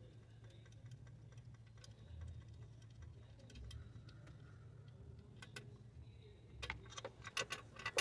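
Light clicks and taps of metal parts being handled while a throttle body is disconnected, ending in a quick run of louder clicks near the end, over a faint low hum.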